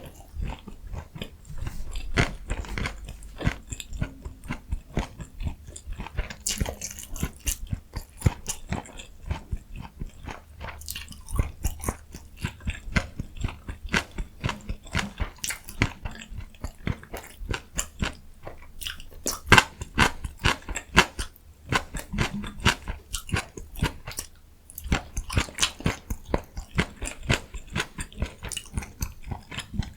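Close-miked eating: a steady run of bites and chewing with many sharp crunchy clicks, the loudest bites coming about two-thirds of the way in.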